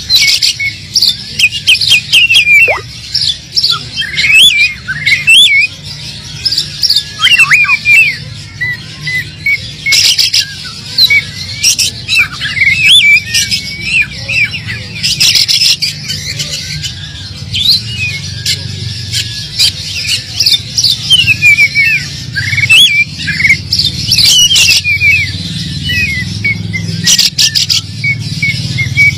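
Oriental magpie-robin singing continuously: a rapid, varied run of whistles, rising and falling glides and harsh rasping notes, full of phrases copied from other birds. A steady low hum runs underneath.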